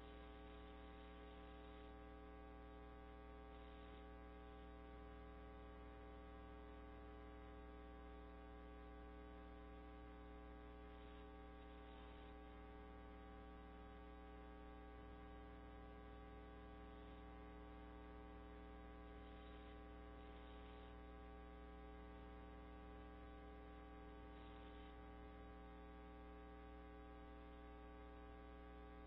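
Near silence: a steady electrical mains hum with its many overtones.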